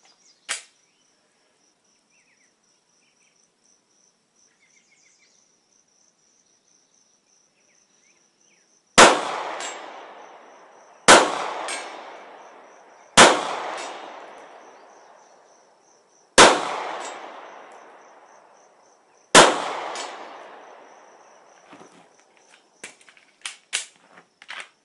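Five 9mm pistol shots from a Glock 26 subcompact, spaced two to three seconds apart, each followed by a long echo that dies away over about two seconds.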